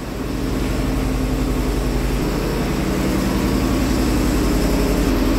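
A generator engine running steadily, getting louder over the first second and then holding an even note.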